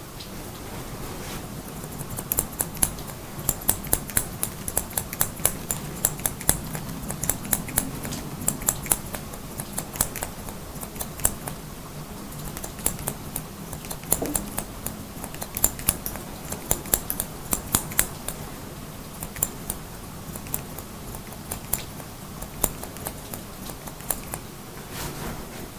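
Hair-cutting scissors snipping in quick, crisp clicks, starting about two seconds in, over a steady hiss of rain.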